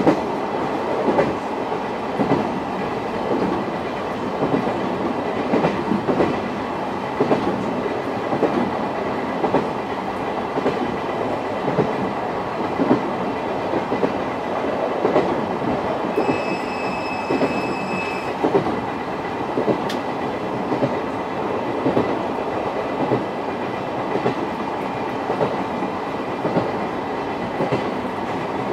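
SuHaFu 42 old-type passenger coach running on the rails, heard from inside the coach: a steady rumble with repeated clickety-clack of the wheels over rail joints. A brief high steady tone sounds for about two seconds about sixteen seconds in.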